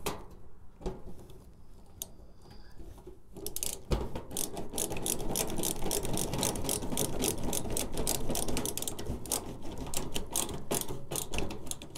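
Screw being driven into the sheet-metal access door of a Suburban NT-30SP RV furnace: a few scattered clicks, then from about four seconds in a fast, steady run of clicking and grinding that stops shortly before the end.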